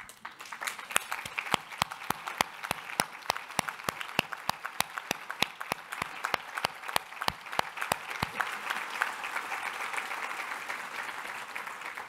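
Audience applauding, with one person's sharp claps close to the microphone at about four to five a second. The close claps stop about eight seconds in while the crowd's applause runs on and fades near the end.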